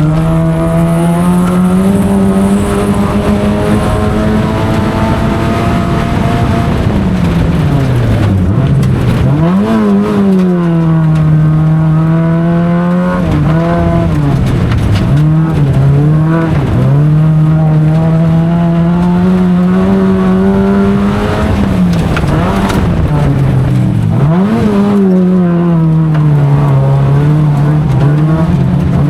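Autocross race car's engine running hard at high revs through a run, its pitch holding steady for long stretches and then dropping and climbing back three times as the driver lifts, brakes and shifts for corners. Tyres squeal at times.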